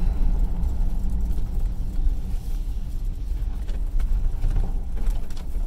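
Low, steady rumble inside the cabin of a 1976 Cadillac Sedan DeVille as it drives along, its 500 cubic inch V8 running under the road noise.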